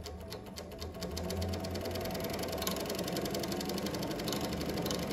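JUKI MS-1190 double-needle chain stitch feed-off-the-arm industrial sewing machine running and stitching light fabric, a rapid, even clatter of needle strokes. It starts slower and speeds up about a second in.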